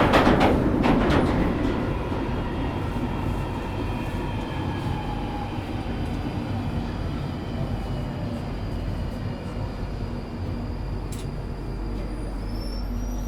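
London Underground Northern line train running through a tunnel, heard from inside the carriage: a steady rumble of wheels on rail, with a faint motor whine falling slowly in pitch as the train eases off. A thin high squeal comes in near the end.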